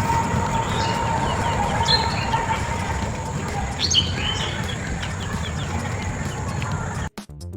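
Outdoor ambience with a few short, high bird chirps about two and four seconds in, over a steady rushing background. Near the end it cuts abruptly to electronic music.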